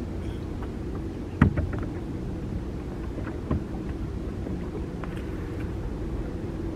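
A few knocks from gear being handled on a small boat, the loudest about one and a half seconds in and another a couple of seconds later, over a steady low hum.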